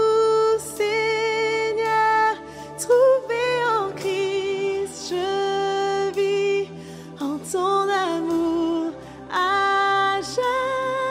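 Worship song: a voice singing long held notes with vibrato over steady sustained accompaniment.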